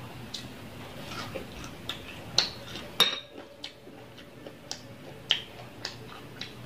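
Close-miked eating by hand: scattered sharp wet clicks of chewing and lip smacks, with a louder clink of a dish that rings briefly about three seconds in.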